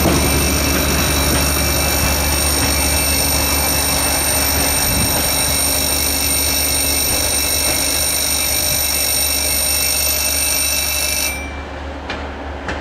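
Level-crossing warning bell ringing steadily, cutting off suddenly about eleven seconds in as the crossing switches off after the railcar has passed. A low hum runs underneath.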